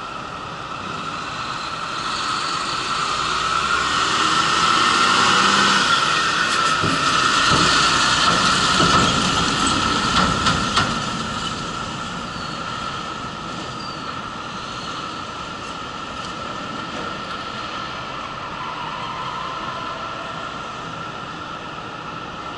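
Semi-trailer truck driving up the ferry's steel stern loading ramp: its running noise builds over several seconds and then fades as it goes into the vehicle deck, with a few clanks around ten seconds in as the wheels cross the ramp.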